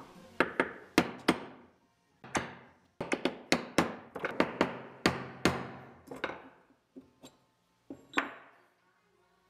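Hammer striking a hand punch set in the bolt holes of an aluminium bearing cover, punching holes through gasket paper: a series of sharp knocks in quick groups of two to four, with short pauses between groups.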